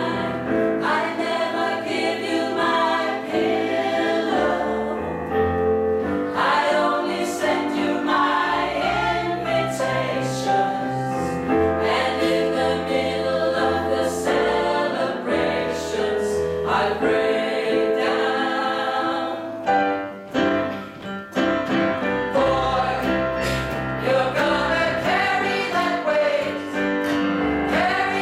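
Small mixed a cappella vocal ensemble of men's and women's voices singing in close harmony, with a low bass line under sustained chords. The singing briefly drops away about twenty seconds in, then carries on.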